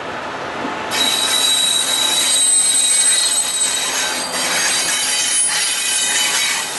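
Class 66 diesel freight locomotive passing close, its wheels giving a loud, steady high-pitched squeal over a hiss that starts suddenly about a second in.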